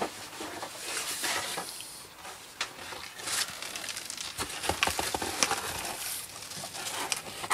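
Handling noises: rustling, scraping and scattered light knocks and clicks as a cardboard pizza box is picked up and held up.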